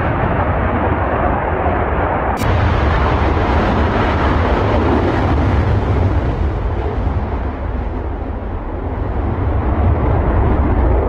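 Sukhoi Su-35S fighter's twin AL-41F1S turbofan engines at takeoff power: a loud, steady jet roar with a deep rumble as the aircraft lifts off and climbs. About two seconds in the sound cuts abruptly to another takeoff.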